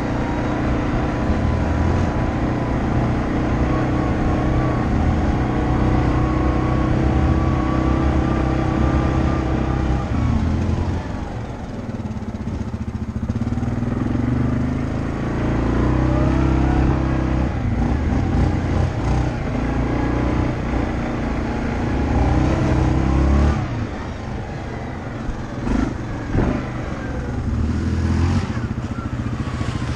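Off-road vehicle's engine running hard along a rough dirt trail, its pitch rising and falling with the throttle. It eases off twice, about a third of the way in and again near the end, before picking back up.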